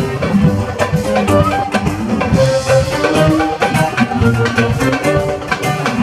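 A live band playing music with a drum kit keeping the beat, plucked strings, and a melody carried in held, stepping notes.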